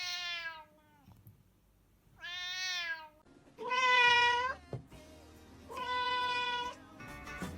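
A cat meowing four times, each meow a drawn-out, pitched call of just under a second, with short pauses between them.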